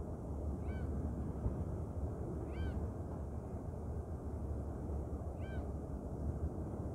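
Seagulls calling: three short, arched cries a couple of seconds apart, over a steady low rumble from the ferry's engine.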